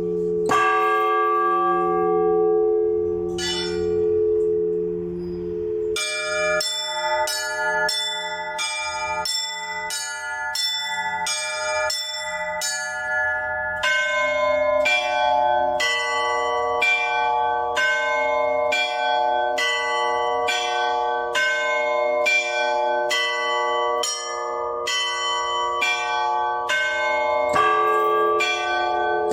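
Russian Orthodox church bells rung by hand by one bell ringer. It opens with a few strokes of a large bell whose low hum rings on. From about six seconds in the smaller bells take up a fast, even chime of about two strikes a second, the pattern shifting midway, and a heavier bell is struck again near the end.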